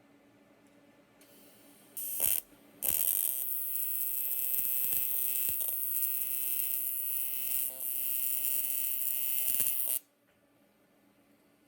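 AC TIG welding arc on aluminum, buzzing steadily while a patch is welded. It strikes briefly about two seconds in, breaks off for a moment, then runs as one continuous weld for about seven seconds and cuts off suddenly.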